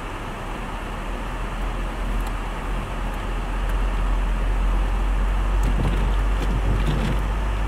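Steady road noise inside a moving car's cabin: a low rumble of engine and tyres that grows louder over the first few seconds and then holds.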